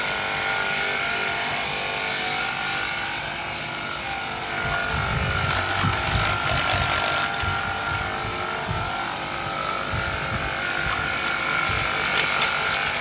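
EAFC cordless battery pressure washer running. Its small pump motor gives a steady whine, slightly wavering in pitch, over the hiss of the water spray.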